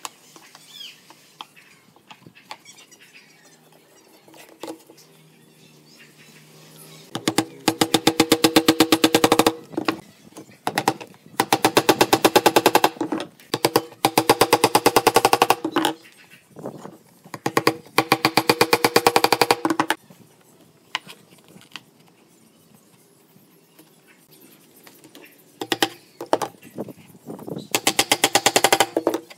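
Steel hammer driving nails into pine boards in about six runs of rapid, evenly spaced taps, each one to two seconds long and ringing, with pauses between. Before the first run there is only light handling of the boards.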